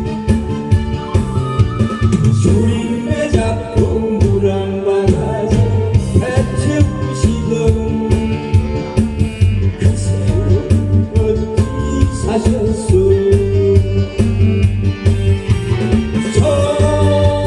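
Korean trot song music with a steady beat.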